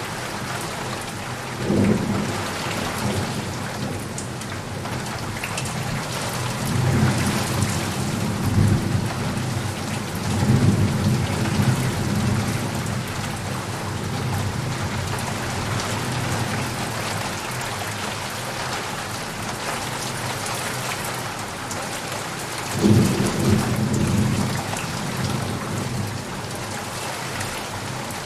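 Heavy rain falling steadily, with thunder rumbling under it: a short roll about two seconds in, a longer rolling rumble in the middle, and another short roll near the end.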